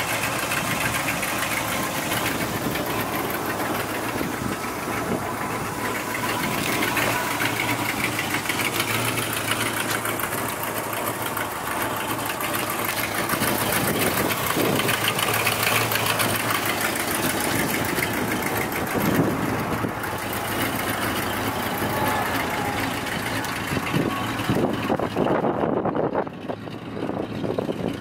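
1977 Dodge W200 military truck's V8 engine idling steadily.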